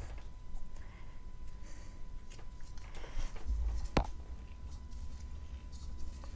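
Quiet handling sounds of a syringe being dipped into soft chalk paste and drawn up, with one sharp click about four seconds in.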